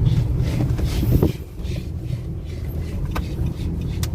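Nissan diesel vehicle running on a test drive: a steady low engine and road rumble that dips briefly about a second in.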